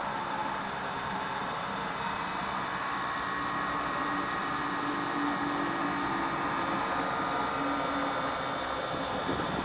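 Steady machine hum from an Ingersoll Rand XHP1170 portable air compressor, with a few faint held whining tones that creep slowly upward in pitch.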